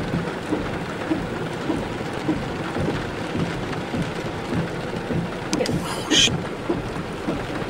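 Heavy rain in a thunderstorm: a steady rushing hiss with irregular low thumps, and a brief louder crackle about six seconds in.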